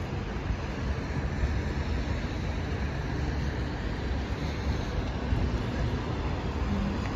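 Steady city traffic noise from a wide street: a continuous low rumble with a hiss of tyres on a wet road.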